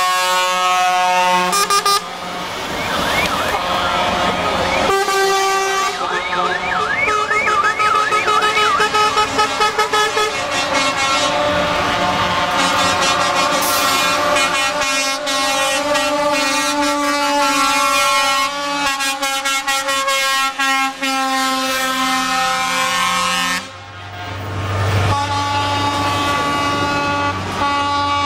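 Truck air horns sounding long, steady chords one after another as a convoy of trucks passes, with a warbling, siren-like horn for a few seconds about a third of the way in. A low truck engine rumble stands out briefly near the end.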